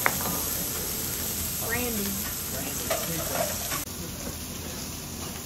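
Wagyu steaks sizzling on a hot steel teppanyaki griddle, a steady frying hiss that drops away abruptly about four seconds in.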